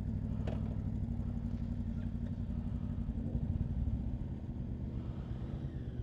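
A motorcycle engine running steadily at low revs, slightly louder about three and a half seconds in, then settling a little quieter.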